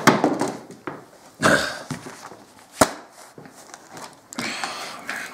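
Knocks and rustling as a person moves about and bends down close by, with a sharp click about three seconds in.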